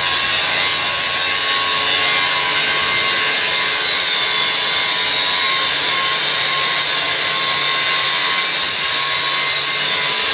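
Handheld angle grinder grinding steel: a steady, harsh hiss with a constant whine underneath.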